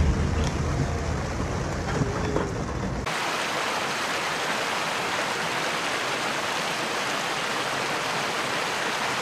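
A car's low rumble as it drives through heavy rain on a flooded road, cut off abruptly about three seconds in. Then a steady rushing of floodwater.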